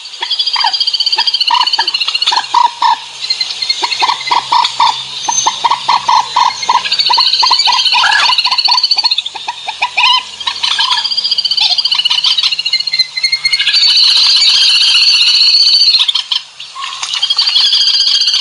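Recorded bird calls played loud through a pair of 10W Titan horn tweeters (bird-luring speakers). A fast run of short chirps, then repeated high warbling calls, ear-piercingly shrill.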